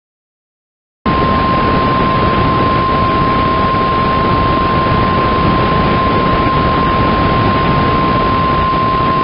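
Weatherradio Canada 1050 Hz warning alarm tone: one steady, loud beep over heavy radio static, starting about a second in after a short silence. The tone signals that a weather warning message follows.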